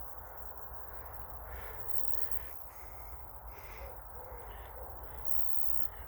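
A bird calling several times over a steady low rumble.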